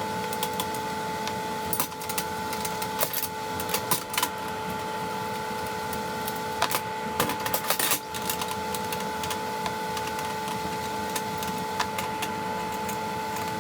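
A steady mechanical hum, with scattered metallic clicks and clinks of hand tools and dirt-bike parts being handled during disassembly; a few louder knocks stand out about two, four, seven and eight seconds in.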